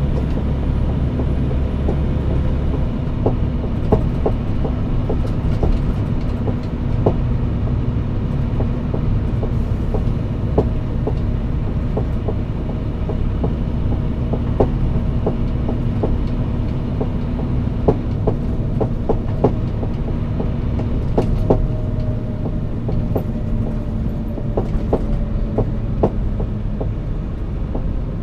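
Scania P360 truck running steadily on the road, a constant engine hum over a low rumble, with frequent irregular knocks and rattles.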